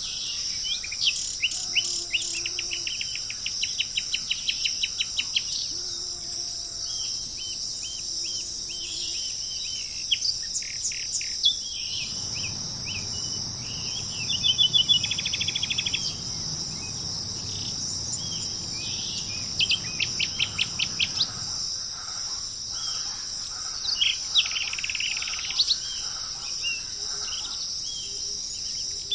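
Birds calling and chirping in quick runs of repeated notes over a steady, high-pitched insect chorus of crickets. A low rumble underlies the middle part, from about twelve to twenty-two seconds in.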